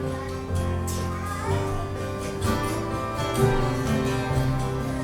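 Instrumental worship music with guitar and held chords, no singing.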